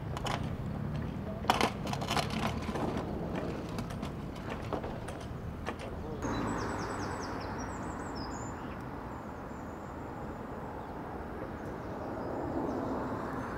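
Outdoor ambience with a steady low background rumble. A few sharp knocks fall in the first half, the loudest a double knock about a second and a half in. In the second half, runs of short, high, falling bird chirps sound over the rumble.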